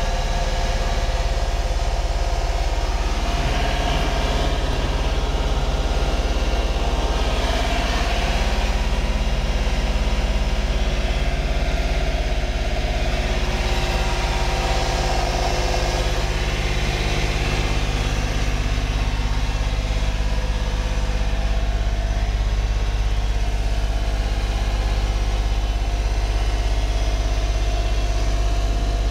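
Honda Acty HA4 kei truck's small three-cylinder engine idling steadily, heard from inside the cab.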